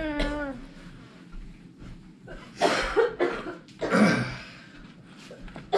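A person coughs twice, about a second and a half apart, after a brief wavering voice sound at the start.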